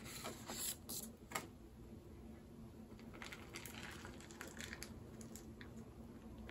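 Faint rustling and squishing of sphagnum moss being pulled away from a plant's roots by hand, with a few sharper clicks in the first second and a half.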